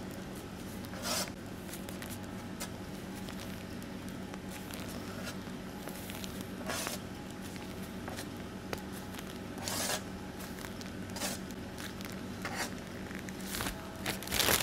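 Meringue being piped from a squeezed piping bag onto a parchment-lined baking tray: soft squishing and rustling of the bag now and then, over a steady low hum.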